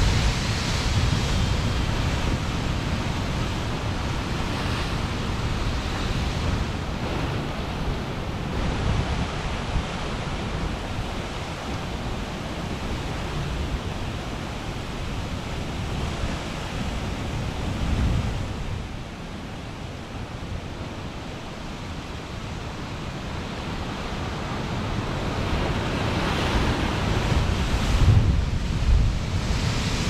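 Large surf crashing against a lava-rock sea cliff: a continuous deep wash of breaking water that eases after about twenty seconds, then builds again with a heavy wave hitting near the end. Wind buffets the microphone.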